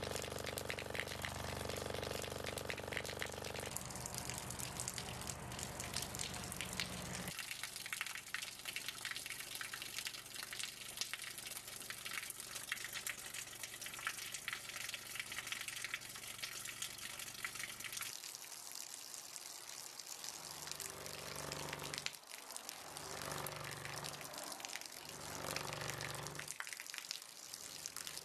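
A thin stream of water from a hose pouring and splashing steadily, with a low buzzing hum from the speaker that drives the hose at a low test tone. The hum changes about four seconds in and stops about seven seconds in. Near the end it comes back, switching on and off every second or two.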